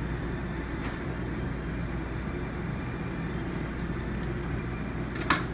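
Steady low mechanical hum of kitchen ventilation equipment, with a few faint clicks of a knife working through jackfruit and one sharper click near the end.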